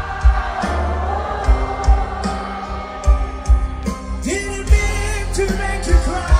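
A band playing with singing, a bass drum thumping under sustained chords and a gliding vocal line.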